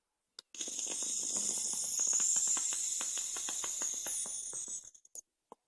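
Vape coils in a rebuilt Aspire BDC clearomizer head firing during a drag: a steady hiss with rapid crackling and popping for about four seconds, e-liquid sizzling on the over-saturated cotton wick of a flooded head. A few short clicks come just before and after.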